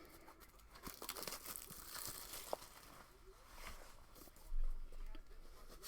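Faint crinkling and tearing of packaging as a sealed trading-card box is opened by hand, with a soft low thump about four and a half seconds in.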